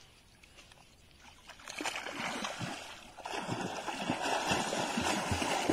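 Water splashing as a swimmer strokes and kicks through the water, starting about two seconds in, dipping briefly, then going on steadily.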